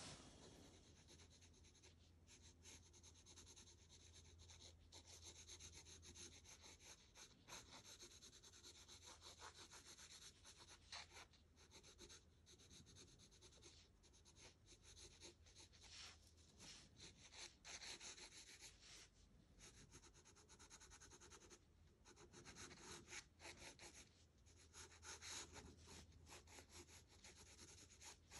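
Faint scratching of a pencil shading on sketchbook paper in quick, short, repeated strokes, pausing now and then.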